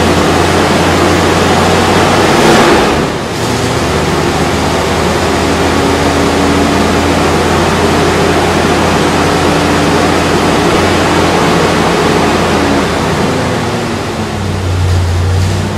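Freshly rebuilt V8 engine of a C3 Corvette running steadily and loud, with a heavy rushing noise over its low drone. The sound swells briefly about two and a half seconds in and again near the end.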